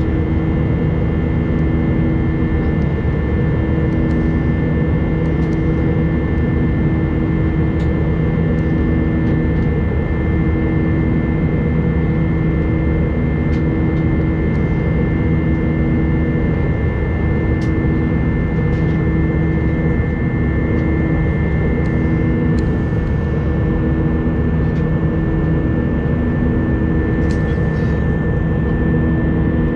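Jet airliner's engines running, heard from a window seat inside the cabin: a steady drone with a few steady hums and a high whine over it.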